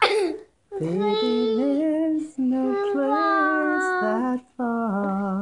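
A young child singing in long held notes: four drawn-out sung phrases with short breaths between, after a brief high vocal cry at the very start.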